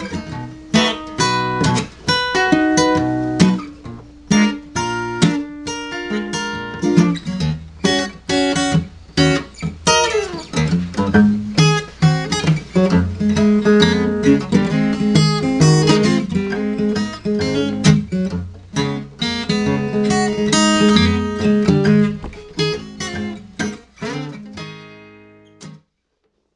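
Acoustic guitar played fingerstyle, a blues tune in A with the guitar tuned a half step below concert pitch: plucked melody notes over a steady bass. Near the end the last notes ring out and fade away.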